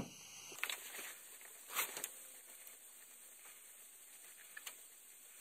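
Quiet handling sounds: a hand and sleeve brushing the engine's wiring harness while a long sensor socket turns the oil pressure sensor loose by hand, with a few soft clicks and a brief rustle about two seconds in.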